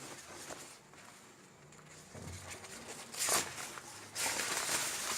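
Rustling of a banner being unfolded by hand: a sharp rustle a little past three seconds in, then continuous rustling near the end.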